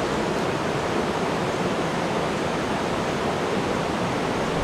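Steady rushing of river water, an even, unbroken roar.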